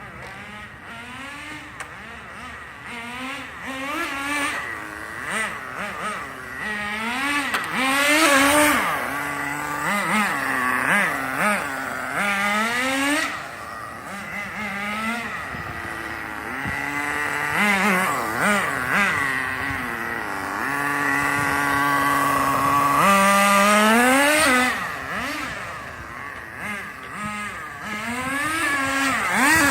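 Nitro RC car's small glow-fuel engine revving up and down over and over as the car accelerates and slows, its whine rising and falling in pitch and growing louder and fainter as the car comes and goes.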